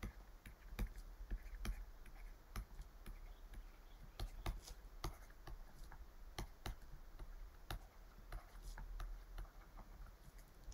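Faint, irregular clicks and taps, a few a second, from a stylus writing by hand on a tablet.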